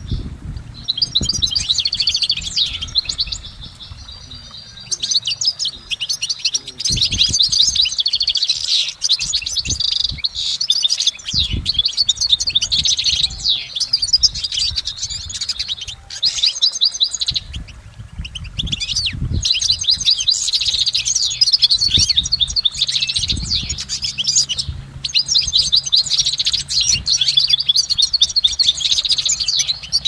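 European goldfinch singing: long phrases of fast, high twittering broken by a few short pauses. A few dull low thumps sound underneath.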